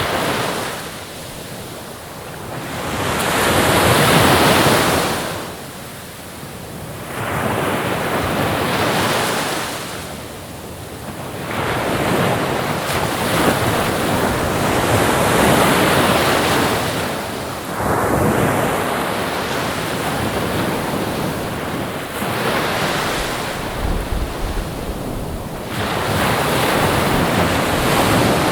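Ocean waves breaking and washing on the shore, the surf swelling and falling back about every four to six seconds.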